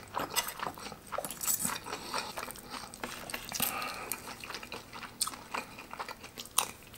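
Close-up chewing of a mouthful of crispy breaded pork katsu filled with melted cheese: a steady run of short crunching clicks and wet mouth sounds.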